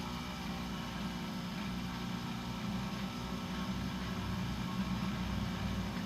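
Electric motor running steadily with a low hum.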